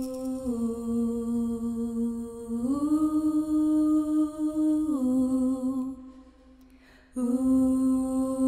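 Wordless vocal music: a voice hums long held notes that step down, then up, then back down, with a break of about a second near the end before the note comes back.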